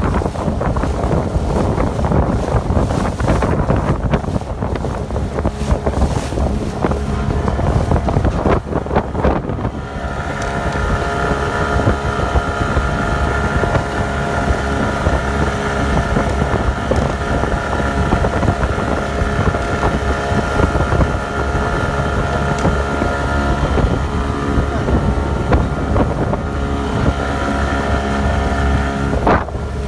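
Small motorboat running at speed, with wind buffeting the microphone and rushing water. For the first ten seconds or so the wind and water noise dominate; after that the engine's steady, even hum stands out clearly.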